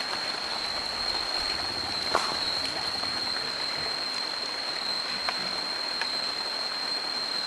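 Outdoor ambience: a steady, high-pitched drone of insects over an even hiss, with a few faint clicks.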